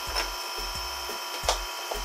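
A few sharp knocks and clunks of a Land Rover Defender's front road wheel being pulled off the hub and set down on the concrete floor, the loudest about one and a half seconds in.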